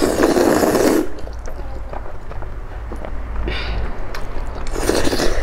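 Saucy spicy instant noodles being slurped loudly into the mouth, in two long pulls, one at the start and one near the end, with smaller wet mouth noises between.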